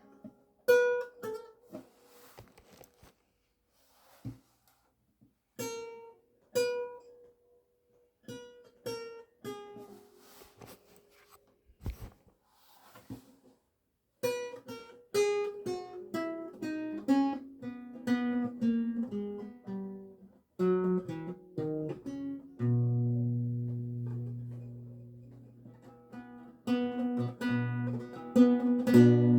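7-course Renaissance lute tuned to A=415, played solo with plucked notes. At first the notes come singly with pauses between them. About halfway through it moves into a steadier run of notes, with a low chord left ringing for a few seconds.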